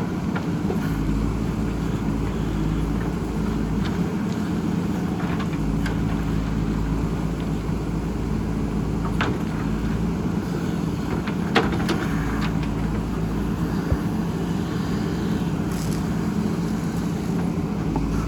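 Diesel engine of a JCB backhoe loader running steadily under work, with a few sharp knocks about halfway through and again near three-quarters of the way.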